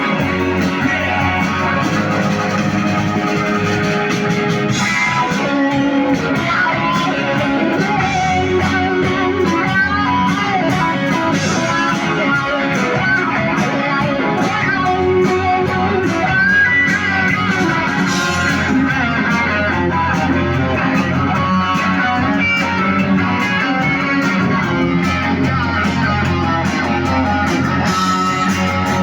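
Rock band playing live, with guitars to the fore and no singing: an instrumental passage.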